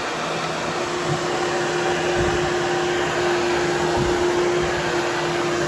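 Hoover Hushtone vacuum cleaner running steadily as it is pushed over a berber carpet to groom the pile, a constant motor hum over the rush of air.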